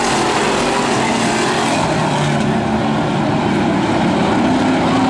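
A field of hobby stock dirt-track race cars racing by, many engines running at once with several engine pitches overlapping and shifting.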